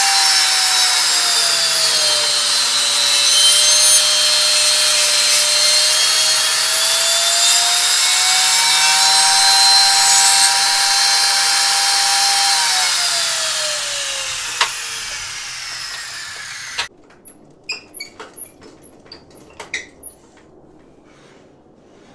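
Benchtop table saw motor running with a steady high whine whose pitch sags for several seconds as the board feeds through the blade. The saw is then switched off and its whine falls away as the blade spins down. After that come a few light knocks of wood being handled.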